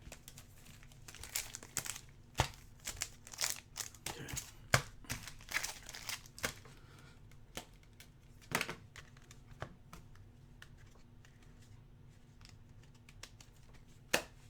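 Plastic wrapping crinkling and tearing as a box of basketball trading card packs is opened, in scattered crackles that grow sparse and quiet about two-thirds of the way through.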